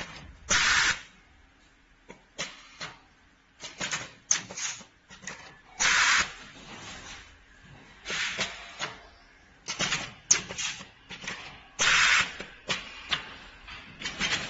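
Automatic HDMI cable cutting, stripping and soldering machine cycling: pneumatic cylinders actuating with short hisses of exhausting air and sharp mechanical clacks. The louder air blasts come about every six seconds.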